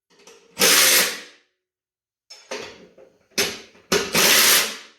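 Handheld power tool running in three short bursts, driving the spindle bracket bolts down tight on a lawn mower deck.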